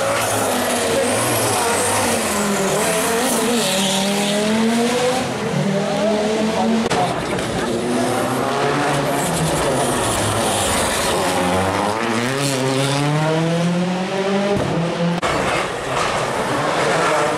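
Rally car engine revving hard, its pitch climbing and dropping again and again through gear changes and lifts, with tyres skidding and squealing.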